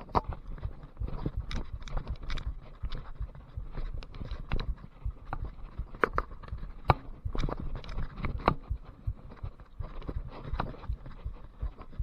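Mountain bike ridden over a muddy trail: an irregular, continuous clatter of knocks and rattles from the bike over rough ground, over a low rumble of the tyres.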